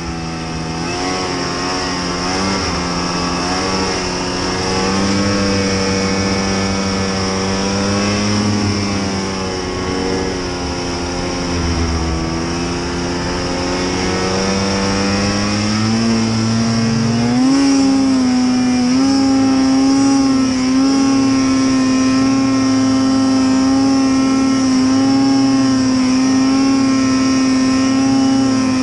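Arctic Cat snowmobile engine running under throttle through deep powder snow, its pitch wavering up and down, then rising about 17 seconds in and holding steady at higher revs. A steady high whine runs above it.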